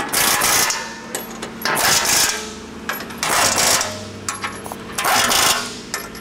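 Cordless impact wrench with a 19 mm socket running the bolts of a steel skid plate tight, in four short rattling bursts of about half a second each, one bolt after another.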